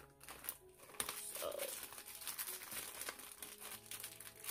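Clear plastic zip-top bag of wax samples crinkling as a hand rummages inside it, a dense run of small crackles.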